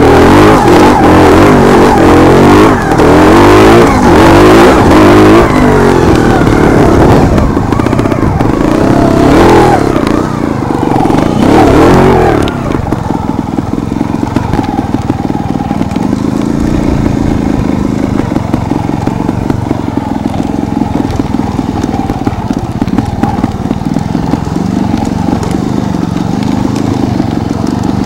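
Beta trials motorcycle engine revving hard, its pitch rising and falling repeatedly while climbing over rocks. About halfway through it drops suddenly to a quieter, steadier run at lower revs.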